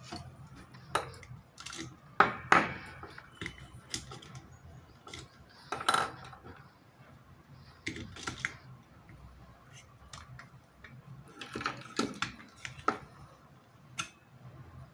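Irregular clicks, taps and light knocks of a plastic LED bulb body and its LED board being handled and fitted together on a bench, with the sharpest knocks about two seconds in and again around six seconds.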